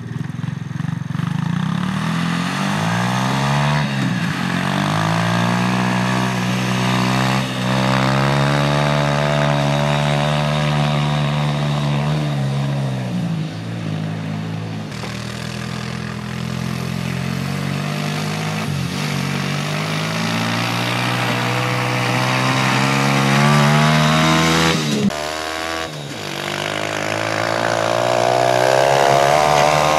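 Homemade track sled's exposed engine running under load, its pitch climbing as it speeds up and dipping sharply when the throttle eases, about four, thirteen and twenty-five seconds in, before rising again.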